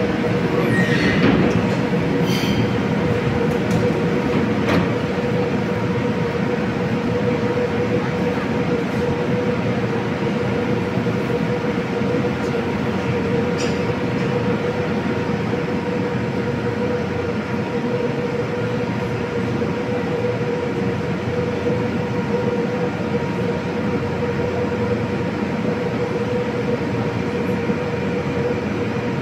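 Moscow metro train standing at an underground station: a steady electrical hum from the train over the station's echoing rumble, with a brief falling whine at the start and a few faint clicks.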